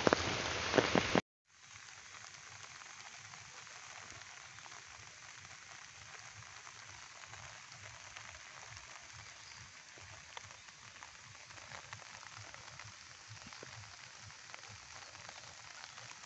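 Rain falling as a steady hiss. About a second in it cuts out briefly, then continues much fainter as a light rain hiss with scattered drop ticks.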